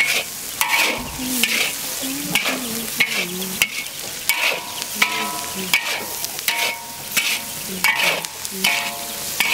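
Metal spatula scraping and tossing pig lung around a large wok, a stroke about every 0.7 seconds, over steady sizzling of the meat frying in hot oil.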